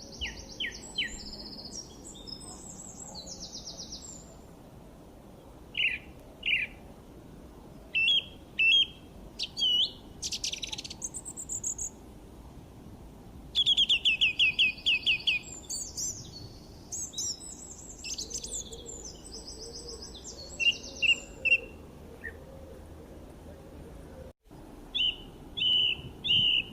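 Songbirds chirping and singing: varied short high chirps, trills and whistled phrases, with a fast run of about eight notes about 14 seconds in, over a faint steady background hiss.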